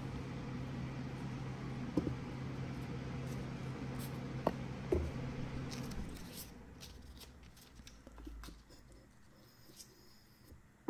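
Steady low hum with a few light clicks of the stainless workpiece and sanding block being handled, the hum dropping away about six seconds in. Afterwards faint, scattered scratching of wet sandpaper on a block being worked lightly over the stainless steel.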